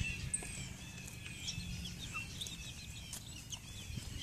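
Young chickens peeping and chirping, many short high notes scattered throughout, over a faint low steady hum.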